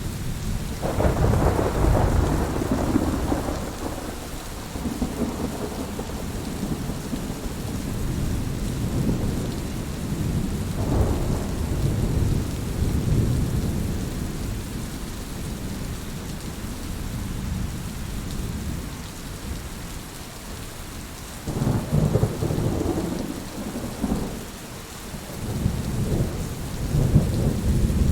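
Heavy rain falling steadily through a thunderstorm, with low rolls of thunder rumbling: one builds about a second in, another comes around the middle, and a few more roll through near the end.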